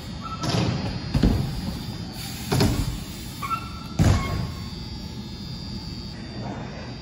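BMX bikes riding and landing on wooden skatepark ramps: several hard thuds ringing in the large hall, with a couple of short high squeaks.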